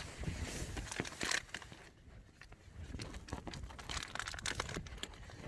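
A food packet crinkling and rustling as it is handled, in a run of irregular small clicks and rustles.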